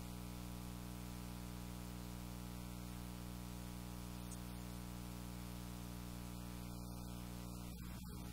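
Quiet background instrumental music, steady held tones over an even hiss.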